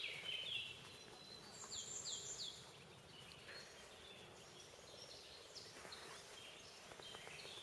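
Small birds singing in woodland: short high chirps and a quick run of falling whistled notes, busiest in the first two or three seconds and sparser after, over a faint steady outdoor hiss.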